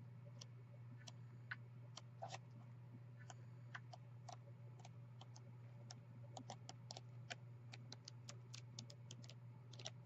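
Faint, irregular small clicks and light rustles of paper pads and plastic packaging being handled, over a steady low hum.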